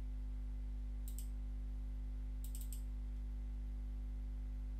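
Faint computer mouse clicks: a pair about a second in, then a quick run of three or four at about two and a half seconds, over a steady low electrical hum.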